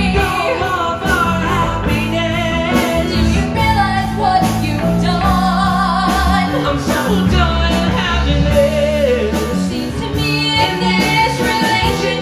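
Live piano-rock band of piano, bass guitar and drums playing a power ballad, with a singer holding long, wavering notes without clear words over steady drum and cymbal strokes.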